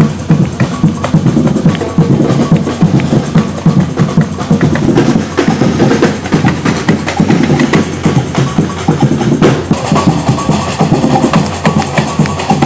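Samba percussion band (batucada) playing a fast, steady beat with bass drums and other drums.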